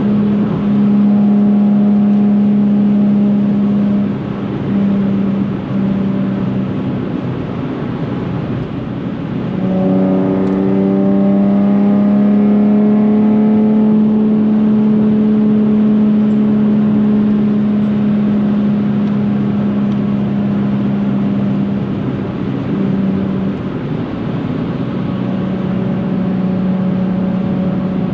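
Nissan 370Z's 3.7-litre V6 through a Tomei titanium cat-back exhaust, heard from inside the cabin at motorway speed: a steady exhaust note that softens for a few seconds as the throttle eases, then comes back on about ten seconds in with the pitch rising under acceleration before holding steady again.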